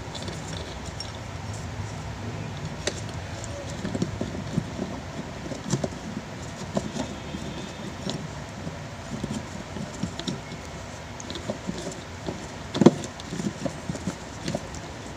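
Scattered clicks and light knocks of an electric fan's motor parts being handled and fitted back together, the stator coil going back onto the motor housing, with one louder knock near the end.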